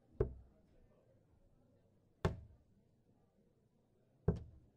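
Three darts thudding one after another into a Winmau Blade 4 bristle dartboard, each a single sharp knock, about two seconds apart.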